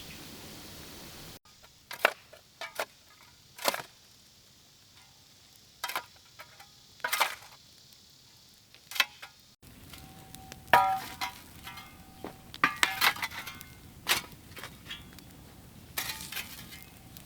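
Scattered sharp knocks and clinks, a few of them ringing briefly, over a faint background that changes abruptly twice.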